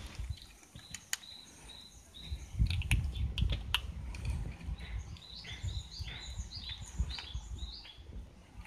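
Kittens crunching dry kibble, heard as scattered sharp clicks, mostly in the first half, while small birds chirp in short repeated notes, busiest in the second half. A low rumble runs underneath.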